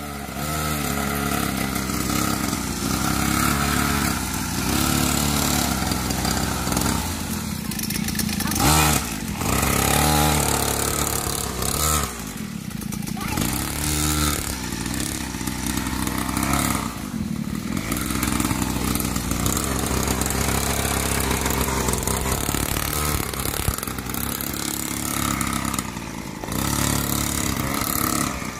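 Small 49cc mini dirt bike engine running at low speed, its pitch rising and falling as the throttle is opened and eased off.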